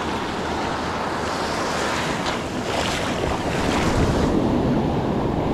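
Ocean surf breaking and washing up the sand, with wind rumbling on the microphone. The hiss of the wash grows about a second and a half in and drops away a little after four seconds.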